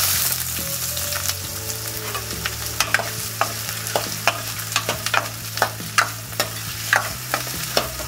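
Chopped onions tipped into hot oil in a steel kadhai, sizzling in a burst as they hit the oil and frying on steadily. From about three seconds in, a metal spoon stirring them clinks and scrapes against the pan about twice a second.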